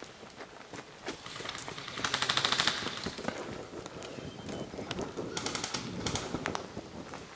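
Airsoft guns firing: a rapid full-auto burst about two seconds in, another shorter burst past the middle, and scattered single shots in between.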